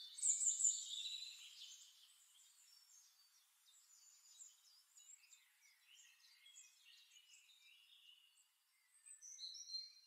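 Birds chirping and calling, quietly: a busy burst of short high chirps and whistles at first, thinning out, then a few clear whistled notes near the end.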